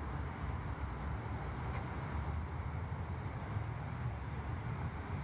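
Steady low rumble of freeway traffic, with faint short high chirps scattered through it.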